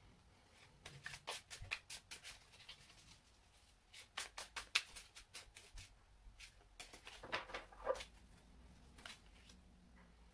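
A deck of tarot cards shuffled by hand, making several bursts of quick soft clicks and slaps, then a card laid down on the desk near the end.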